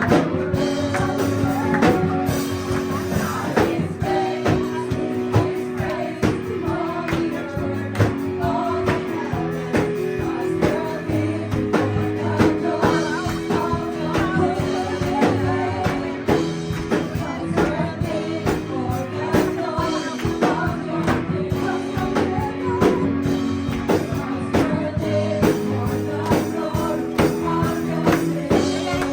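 Live worship band playing a praise song, with voices singing over a steady band accompaniment.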